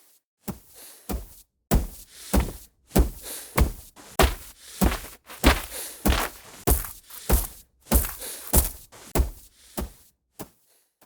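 A woman's walking footsteps, one step about every 0.6 s, in short takes that change from approaching to concrete, then dirt, then grass. Near the end the steps go quieter and sparser as they recede.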